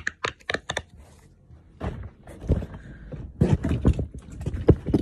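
Fidget toys being handled and rummaged through: a quick run of sharp clicks, then a few seconds of rustling with dull thumps.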